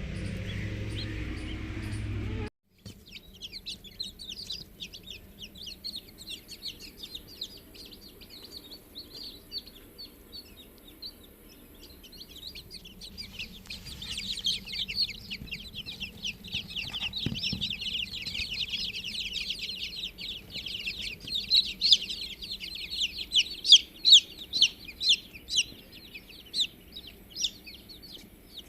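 Many birds chirping rapidly in a dense, continuous chorus that grows louder and busier about halfway through, with single chirps standing out near the end. A different, lower sound cuts off suddenly about two and a half seconds in, before the chirping starts.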